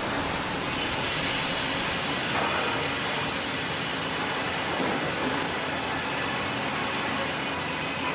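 Sawmill circular headsaw cutting through a big log on the carriage, with the mill machinery running: a steady, even noise.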